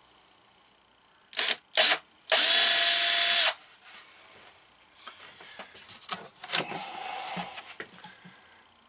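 Cordless drill drilling the handle hole through a cabinet door from the back side, so the hole does not tear out. It gives two short blips, then a steady whining run of about a second. Quieter knocks and rustling of handling follow.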